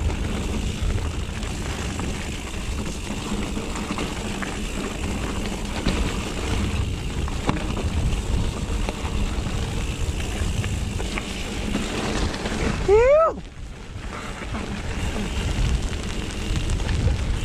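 Mountain bike riding a dirt trail, its tyres and frame rumbling steadily under wind buffeting on the mounted action camera's microphone. About 13 seconds in comes one brief squeal that rises and then falls in pitch, after which the ride noise eases.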